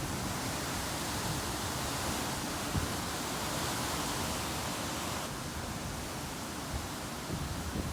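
Steady rushing hiss of hurricane wind and rain, with uneven low rumbling from gusts buffeting the microphone; the hiss eases slightly about five seconds in.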